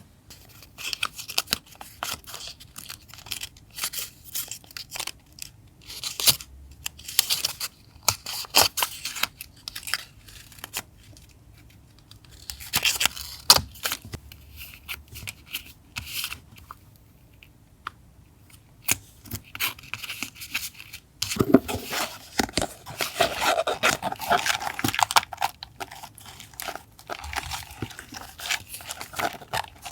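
Paper being handled, cut and torn for a journal collage: scattered rustles and small clicks, with a longer, denser stretch of crinkling and tearing about two-thirds of the way through.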